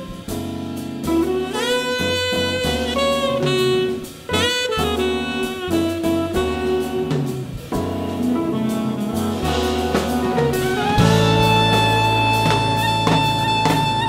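Tenor saxophone playing a jazz solo in quick, bending phrases over big-band accompaniment with drum kit. About eleven seconds in, a long held note sounds over fuller backing from the band.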